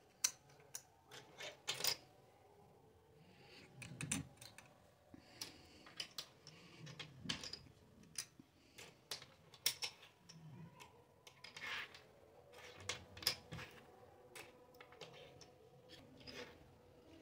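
Small hard-plastic toy forks, knives and spoons clicking and clacking as they are set down one at a time on a table and on plastic plates, at an irregular pace with a few soft thumps in between.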